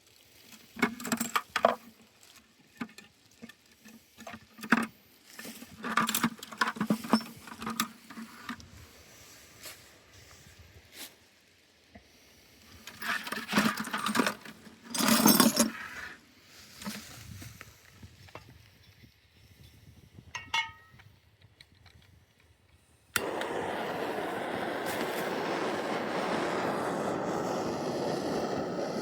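Irregular clinks, knocks and scrapes of hand work on pipe fittings, then a loud, steady rushing noise starts suddenly about 23 seconds in.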